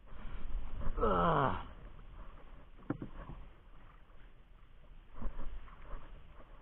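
A short falling groan from a person's voice about a second in, followed by a couple of soft knocks.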